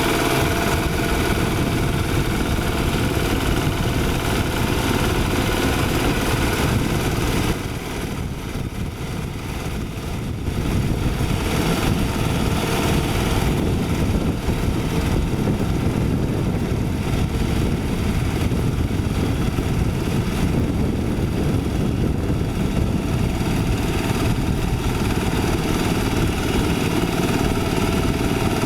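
Light diesel engine of a Quick H-140R rice harvester running steadily under work. It drops in level about seven seconds in and comes back up about three seconds later.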